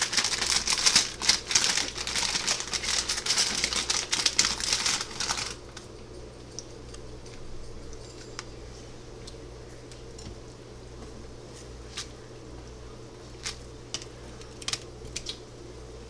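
Plastic Shin Ramyun instant-noodle packet crinkling and rustling as it is handled and opened for about five seconds, then it stops suddenly. After that only a low steady background with a few light clicks.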